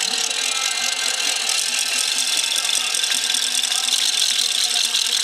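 Trackside crowd noise from spectators lining the course, with a small engine running steadily underneath.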